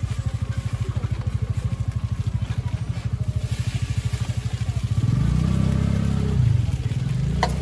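A small engine running with a fast, even low chugging; about five seconds in it changes to a smoother, slightly louder drone. A few sharp clicks come near the end.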